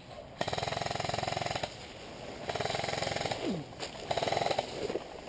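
Airsoft rifle firing on full auto in three bursts, a rapid even rattle of shots: the first about a second long, then two shorter ones.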